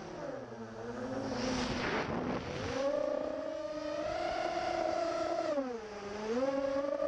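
A 5-inch FPV racing quadcopter's Cobra 2204 2300KV brushless motors spinning 5040 propellers, heard from the onboard camera. The motor whine sits low with a rush of air for the first couple of seconds, rises to a steady higher pitch about three seconds in, dips briefly near six seconds and climbs again as the throttle changes.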